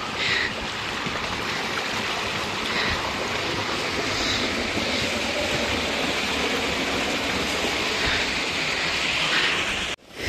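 Steady rushing of a small stream of water pouring down a stone wall into a channel. It cuts off abruptly near the end.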